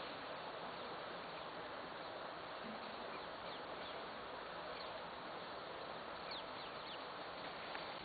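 Steady outdoor background hiss with a few faint, brief high bird chirps, about three seconds in and again around six seconds in.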